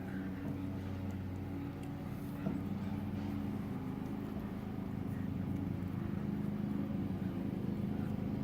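Steady low mechanical hum, like a motor running, growing slightly louder toward the end.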